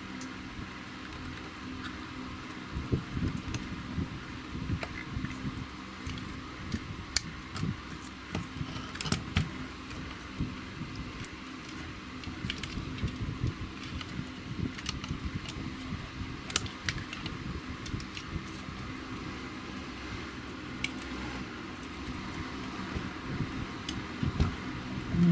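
Light, irregular clicks and taps of hands handling the plastic casing, circuit boards and ribbon cables inside an opened PAT tester, over a steady low hum.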